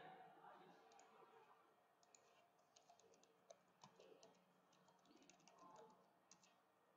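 Faint, irregular clicks of typing on a computer keyboard, in short clusters from about two seconds in.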